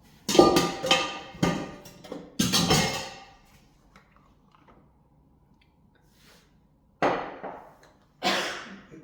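Dishes being set down and knocking against each other. Several ringing clinks and clatters come in the first three seconds, then two more knocks near the end.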